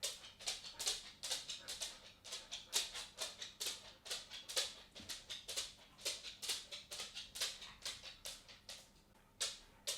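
A cat walking: a steady run of light, sharp footsteps at about four a second, with a short pause about nine seconds in before the steps resume.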